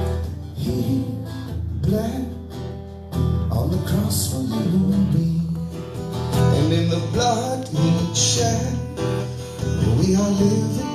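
Acoustic guitar strummed as accompaniment, with a man singing a melody over it.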